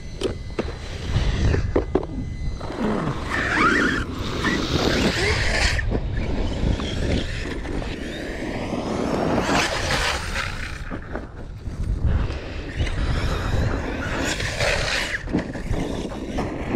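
Traxxas Sledge RC monster truck's brushless electric motor whining up and down in pitch as it is throttled and let off, with its tyres scrabbling over loose dirt and a few sharp knocks.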